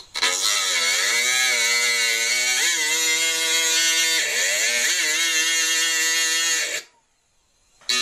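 Jeweller's flexible-shaft pendant motor spinning a small grinding disc that grinds a V-groove into sterling silver sheet: a steady motor whine with a grinding hiss, its pitch dipping and rising a few times as the speed changes. It cuts out for about a second near the end, then starts again.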